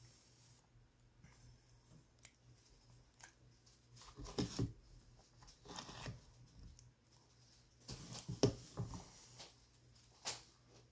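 Ice cream being eaten with a spoon: the spoon scraping and scooping in the bowl, with wet mouth sounds of eating. It comes in two short bouts a few seconds apart, with a sharp click near the end.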